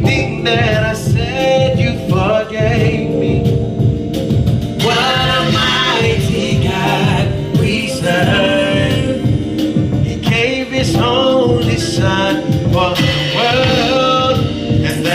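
Gospel music performed with singing over band accompaniment and a steady beat.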